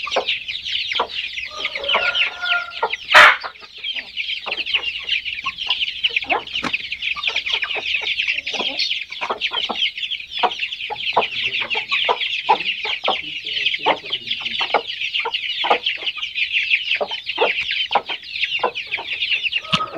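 A flock of Aseel chicks peeping in a dense, continuous high chorus, with clucking from older young birds mixed in. A single sharp knock stands out about three seconds in.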